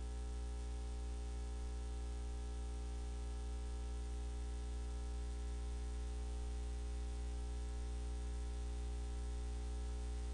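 Steady low electrical hum with a layer of hiss, unchanging throughout: the noise floor of the audio line with no programme sound on it.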